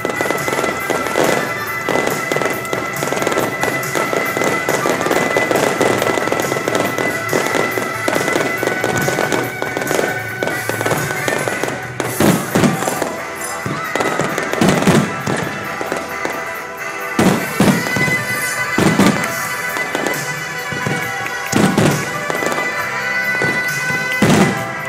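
Aerial fireworks display: a dense barrage crackles continuously under music with long held tones, then from about halfway a string of loud shell bursts goes off about one to two seconds apart.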